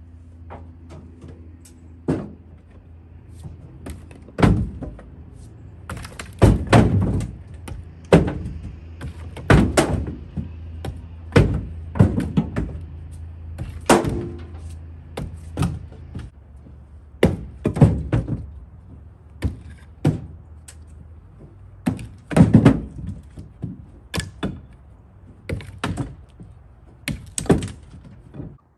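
Split firewood being hooked with a pickaroon and dragged and tossed out of a pickup bed: a long irregular series of sharp wooden thunks and knocks, some clattering as pieces strike each other and the bed. A faint steady low hum runs underneath.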